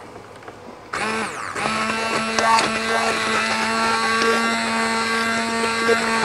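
Immersion blender switched on about a second in, spinning up with a rising whine, then running at a steady pitch as it purées a pot of cooked apples into apple butter.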